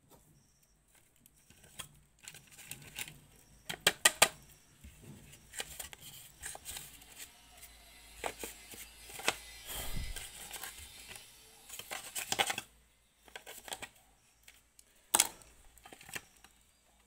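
Plastic appliance housing and its wiring being handled: irregular clicks, knocks and rustling scrapes, with a cluster of sharp clicks about four seconds in, a longer stretch of scraping and rustling in the middle, and one sharp click near the end.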